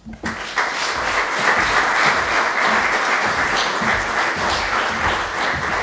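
Audience applauding: steady clapping from many people that starts right away and eases off slightly near the end.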